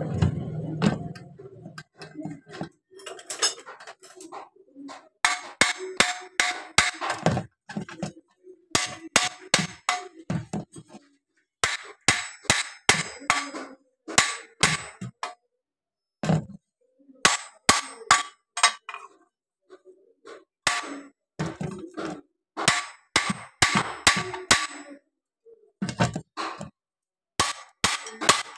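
Metal parts of a marble cutter being knocked and tapped during disassembly. There are quick runs of sharp metallic strikes that ring briefly, with short pauses between the runs.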